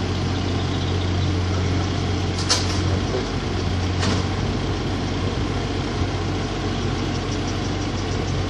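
Yanmar mini excavator's diesel engine running steadily, its low note changing about three seconds in. Two sharp knocks come about two and a half and four seconds in.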